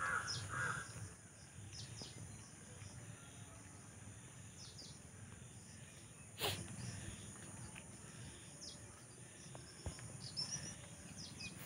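Quiet rural field ambience: a crow cawing a few times in the first second, then scattered faint bird chirps over a steady high-pitched drone, with one sharp knock about six and a half seconds in.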